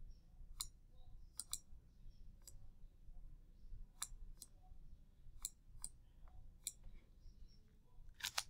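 Computer mouse clicking: faint, short clicks at irregular intervals, some in quick pairs, with a louder one near the end, over a low hum.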